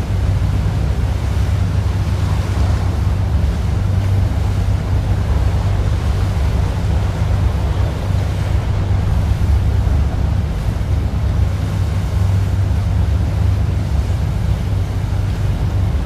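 Tour boat under way: its engine running with a steady low hum, under the rush of water past the hull and wind buffeting the microphone.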